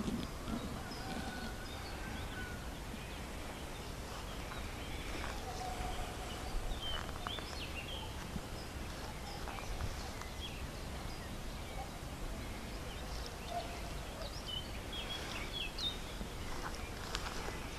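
Wild birds in a pine wood chirping and calling, many short scattered calls over a steady low rumble of outdoor background noise. A few short rustles come near the end.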